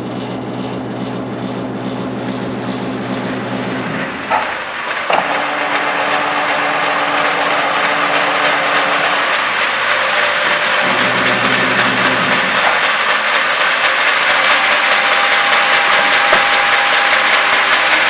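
Sawmill machinery: an electric motor hums in stretches, cutting out about four seconds in, coming back, then stopping and starting again. It sits under a steady machine noise that grows gradually louder, with a couple of knocks about four and five seconds in.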